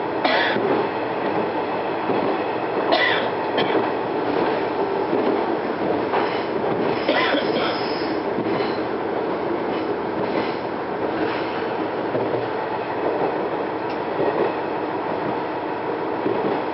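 Diesel railcar running along the line, heard from inside the car: a steady rumble of engine and wheels on rail. Short high wheel squeals come in near the start and at about three and seven seconds in.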